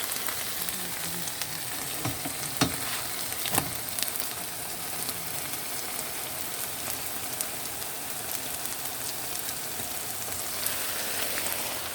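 Food frying in a pan, a steady sizzle and crackle, with a few sharp knocks about two to four seconds in.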